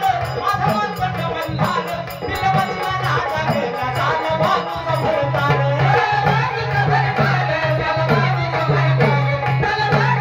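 Marathi folk music playing: a hand drum beating under a melody line, with rattling percussion.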